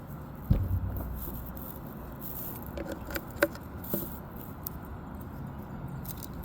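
Handling noises as small fireworks are fitted into a container: a knock about half a second in, then scattered clicks and rattles.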